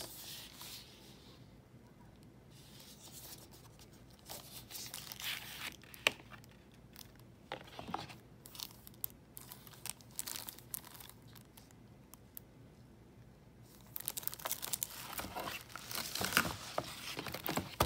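Plastic shrink-wrap on a Blu-ray case crinkling and rustling as it is handled, with a sharp click about six seconds in. The crinkling turns denser and louder in the last few seconds.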